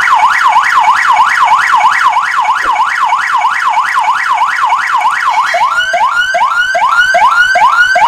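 Wireless remote-controlled VIP police siren sounding loud, first a fast up-and-down warble of about three to four cycles a second. Past the halfway mark it switches to another tune, rising whoops about two a second, as a different button on the remote is pressed.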